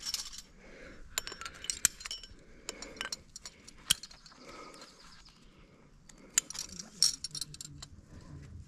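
Metal climbing gear (carabiners, cams and nuts racked on a harness) clinking and jangling in short bursts as the climber moves, with one sharp clink about four seconds in.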